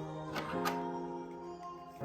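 Soft instrumental background music with held chords that change about every second, and a couple of light clicks a little before halfway.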